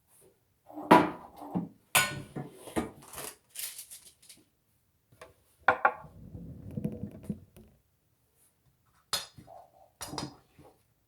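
Kitchen utensils clinking and knocking against a bowl and a baking pan: a run of short clatters, a brief scraping rustle midway, and two more knocks near the end.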